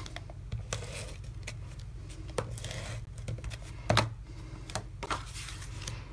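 Tape-runner adhesive dispenser rolled in short strokes across cardstock, with small clicks and paper being handled, and a louder knock about four seconds in as the runner is set down.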